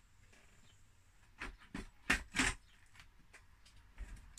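Handling knocks and clicks from the BBC Master Compact's keyboard and plastic case being moved during reassembly: four knocks in quick succession in the middle, the loudest about two seconds in, then a couple of lighter clicks.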